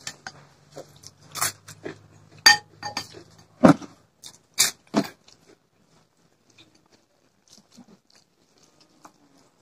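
Close-up eating sounds of rice and curry eaten by hand: chewing and wet mouth smacks, with several loud sharp clicks in the first five seconds, then only faint, scattered mouth noises.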